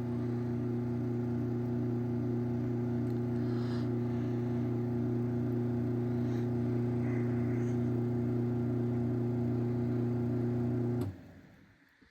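Craftsman 139.54930 garage door opener's motor running with a steady hum after a wall-button press, then stopping abruptly about eleven seconds in at the end of its travel.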